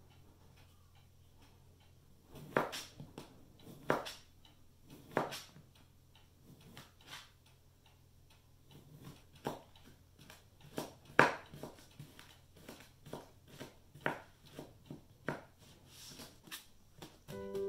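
Kitchen knife slicing kiwi fruit on a thin plastic cutting board: irregular knocks of the blade striking the board, roughly one or two a second, some much sharper than others. The first couple of seconds hold only faint small ticks while the fruit is peeled.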